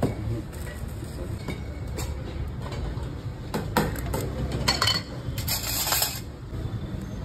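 Steel utensils and an ice-cream scoop clinking against a glass and a steel counter while a scoop of ice cream is set on a mango milkshake: several sharp clinks, with a brief hiss about five and a half seconds in. A steady low hum runs underneath.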